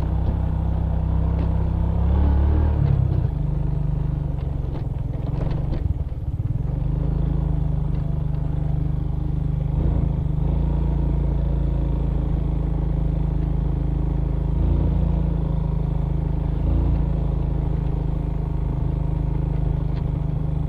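Suzuki Smash Revo underbone motorcycle's single-cylinder four-stroke engine running under load on a rough uphill dirt trail, its pitch shifting up and down several times. A few knocks and rattles come around six and ten seconds in as the bike jolts over bumps.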